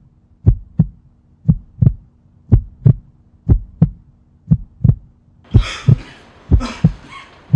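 Heartbeat sound effect: slow double thumps, lub-dub, about one beat a second, over a faint steady hum. A faint hiss joins in near the end.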